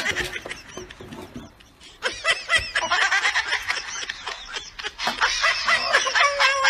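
High-pitched giggling laughter in quick, repeated bursts, starting about two seconds in after a quieter opening.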